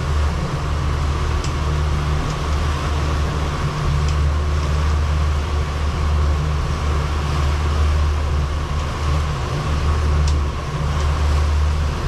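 Fishing boat's engine running steadily under way: a continuous low drone with a wash of noise over it.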